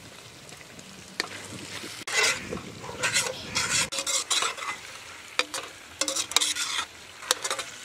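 Mutton fat, onion and tomato masala sizzling in a black kadai while a long metal spatula stirs and scrapes around the pan in repeated strokes from about two seconds in.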